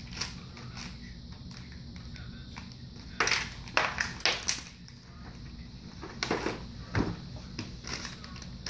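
Clear plastic packaging crinkling as it is handled, in short sharp bursts about three seconds in and again about six seconds in, with a knock among the second bursts and a low steady hum underneath.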